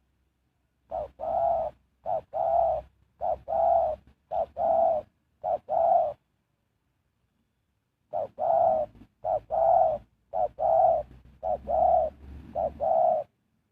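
Spotted dove cooing: two phrases, each a run of about five paired coos, a short note followed by a longer one, with a pause of about two seconds between the phrases.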